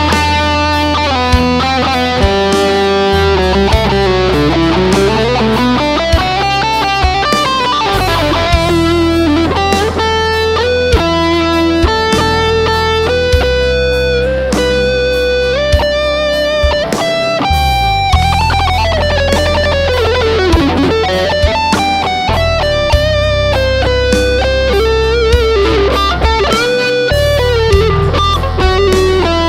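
Squier Bullet electric guitar with HSS pickups playing a lead melody full of slides and bends, through a Boss ME-25 multi-effects unit. Underneath is a steady low backing with a regular beat.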